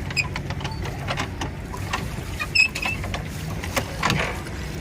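A small rental boat's mechanism clicking and creaking as it is worked along, over a steady low rumble.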